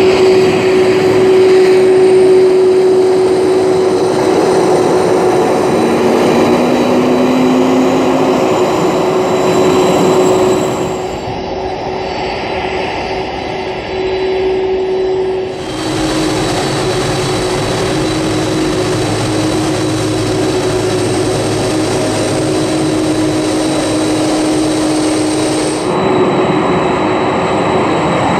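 Boeing 747-400's General Electric CF6 turbofan engines running at low taxi thrust: a steady rumble under a constant whine. The sound drops and shifts abruptly three times.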